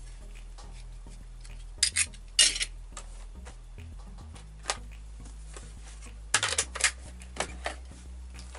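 Short clusters of clinking and clattering of metal being handled, loudest about two seconds in and again around six and a half seconds in, over a steady low hum.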